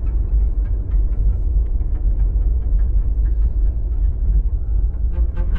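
A deep, steady rumbling drone from a film score's sound design, with faint irregular clicks over it. Low bowed strings come in near the end.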